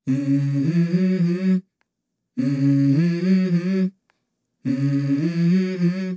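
A lone voice humming a wordless melody with no accompaniment, in three short phrases split by brief silences.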